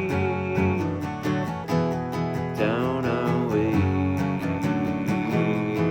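Country-style song with an acoustic guitar strumming a steady rhythm, about four strums a second, under a held melody line that slides in pitch midway.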